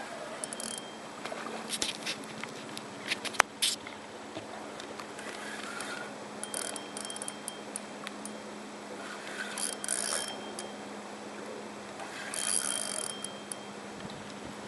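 Fishing reel working: irregular mechanical clicking and ratcheting, with a few sharp clicks and short scraping bursts over a steady low hum.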